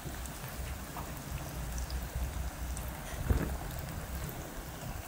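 Hot oil sizzling steadily as cornstarch-coated potato balls deep-fry in a saucepan, over a low rumble. A single thump sounds about three seconds in.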